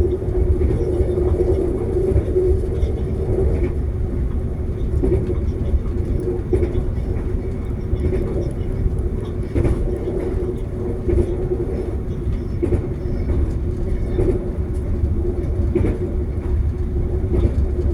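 Passenger train running along the line, heard from inside a carriage: a steady low rumble with a constant hum and scattered light clicks and knocks.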